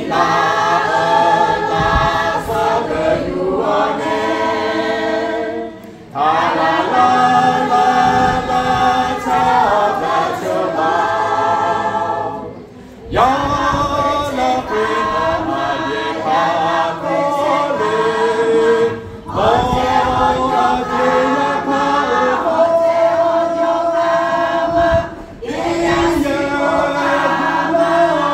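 Mixed choir, mostly women's voices with a few men, singing a hymn in unison without accompaniment. The hymn comes in phrases about six seconds long, with a short breath between them.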